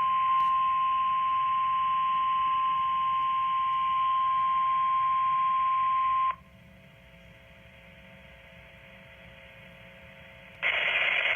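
NOAA Weather Radio's 1050 Hz warning alarm tone, sounding on a weekly test through a weather radio receiver. It holds one steady pitch for about six seconds, then cuts off suddenly, leaving a faint hiss. Near the end a loud hiss of radio noise comes in.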